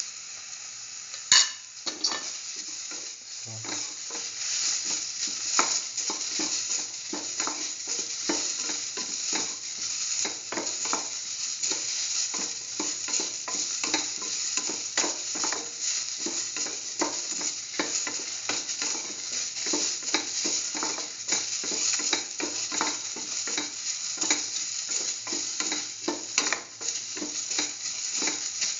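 Chopped onion, shallots, tomato, green chillies and soy chunks sizzling in oil in a metal pan while a spatula stirs and scrapes them in quick, repeated strokes. One sharp knock sounds about a second in.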